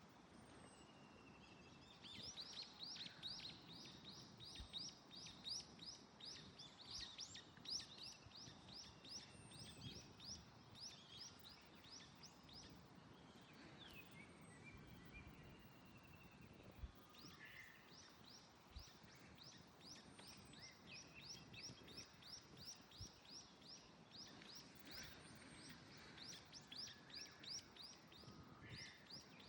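Faint bird calls: two long runs of quick, repeated high chirps, several a second, with scattered single chirps between them, over a low wind rush.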